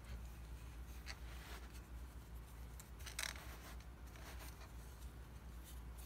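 Faint scraping and rubbing of a hand-held, plastic-capped vacuum part being handled against the hand and carpet. There are a few short scratches, the clearest about three seconds in.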